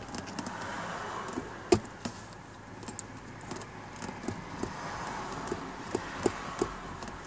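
Inside the cabin of a 2012 Chevrolet Tahoe on the move: steady driving noise with scattered small clicks and rattles, and one sharp knock just under two seconds in.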